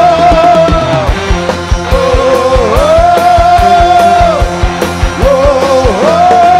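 A live dangdut koplo band playing, with drums keeping a quick steady beat under a bass line and a lead line on long held notes.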